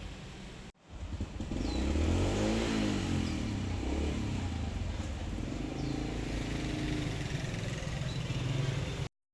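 Street traffic: a motor vehicle's engine passing close by, its note rising and then falling, followed by another engine running steadily. The sound cuts off abruptly near the end.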